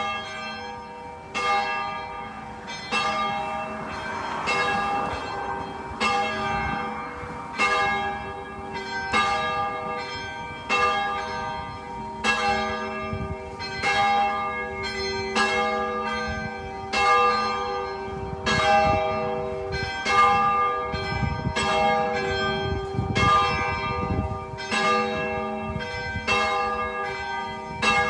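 Church bells ringing, a strike about every second and a half, each one ringing on under the next.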